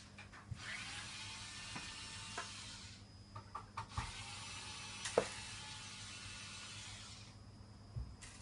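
Vitek VT-1156 kettle at the boil: a steady hiss of boiling water with scattered clicks and knocks, over a low hum. The hiss falls away about seven seconds in, and a single click follows about a second later.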